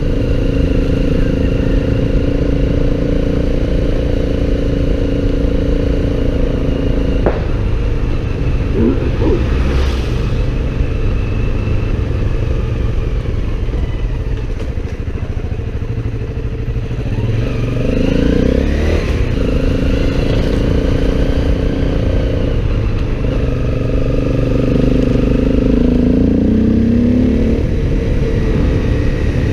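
Motorcycle engine running while riding, over a steady low rumble. Its pitch holds steady for the first several seconds, then shifts with throttle and gears, rising in revs twice in the second half.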